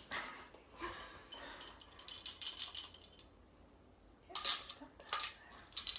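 Metal measuring spoons on a ring clinking together and against a stainless steel mixing bowl: a few short, light clinks and rattles spread over several seconds.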